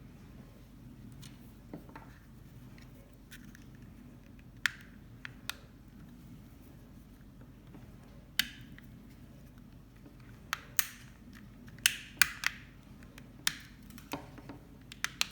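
Small plastic clicks and taps as the back cover of a Fimi Palm camera is worked into place by hand. The clicks come singly at first and grow more frequent in the second half.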